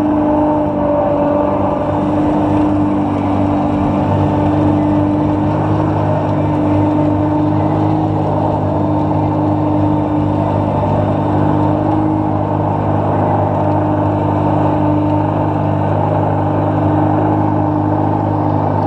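Zamboni ice resurfacer's engine running steadily as the machine drives on the ice, heard from on board as a loud, even drone with a steady hum.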